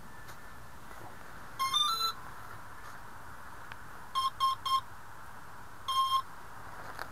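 Electronic speed controller start-up beeps from an RC plane's brushless motor: three rising tones, then three short beeps, then one longer beep, the usual sign that the battery is connected and the ESC is armed.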